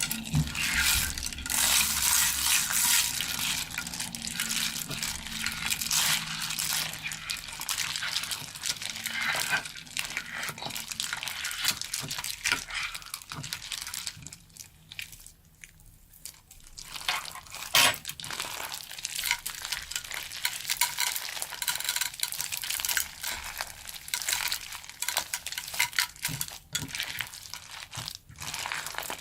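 Plastic bag crinkling and rustling as crunchy slime full of slushy beads is squeezed and kneaded inside it: dense, continuous crackling with a short lull about halfway through.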